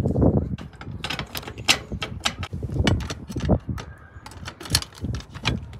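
Scattered clicks and knocks of a key ring and key being handled at a metal community mailbox's parcel locker, over a steady low rumble.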